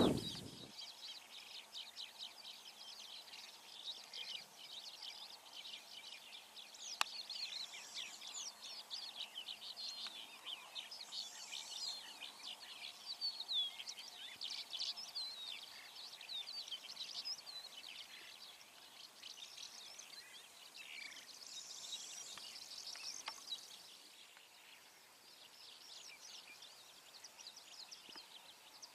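Wild birds chirping and singing, many quick high calls overlapping, over a faint outdoor background. One sharp click about seven seconds in.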